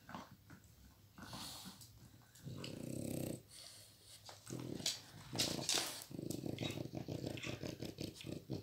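A dog growling over a toy, in several low, rattling bouts of about a second or more each, with a few sharp clicks between.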